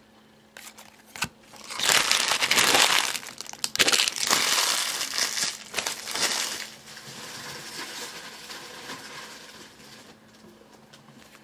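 Trading-card pack wrapper being crinkled and torn open by hand, a loud rustling stretch of about five seconds, then fainter handling of the wrapper and cards.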